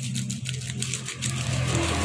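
Small plastic sachet of ground white pepper shaken and flicked over a wok, giving a quick run of crinkly ticks, with a steady low hum underneath.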